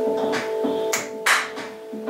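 Intro music: a held chord over a steady percussive beat, with one loud sharp hit just past the middle as the chord drops out.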